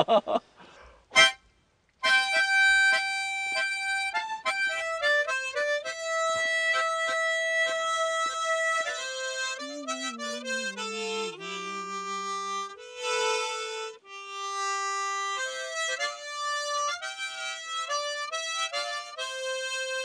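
A harmonica played solo: a slow tune of long held notes, starting about two seconds in.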